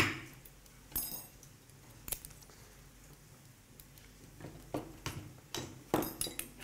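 Metal surgical instruments clinking and tapping in a series of separate sharp clicks. One at about a second in rings briefly, and the clicks come closer together near the end.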